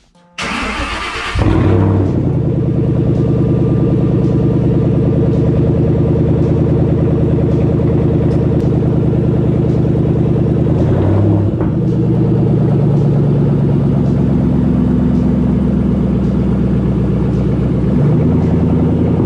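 Shelby GT500's supercharged V8 cold-started, heard from behind the exhaust tips: a brief crank, then it catches and settles into a loud, steady cold idle. The note shifts briefly twice, once near the middle and once near the end.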